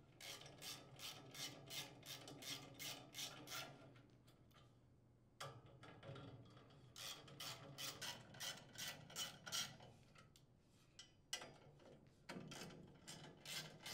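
Faint, even clicking of a socket ratchet, about three clicks a second, as it backs out the muffler guard's mounting screws. The clicking stops twice, for a second or two each time.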